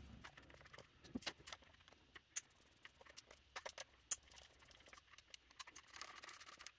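Faint, scattered small clicks and taps of a small Phillips screwdriver working at the screws in the plastic pistol grip of an airsoft gun and the grip being handled.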